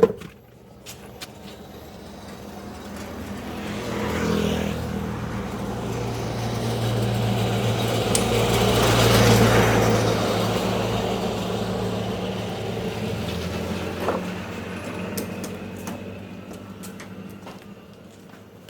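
A motor vehicle passing by: its engine hum grows louder over several seconds, peaks about halfway through, then fades away.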